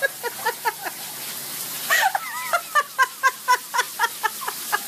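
Heavy rain falling steadily, with a person laughing in quick, high-pitched bursts from about two seconds in.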